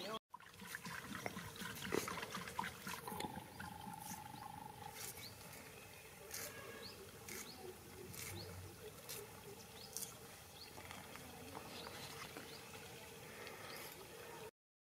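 Green chillies being cut by hand against a small iron blade: a run of faint crisp snaps, roughly one a second, over low background noise and a faint steady hum.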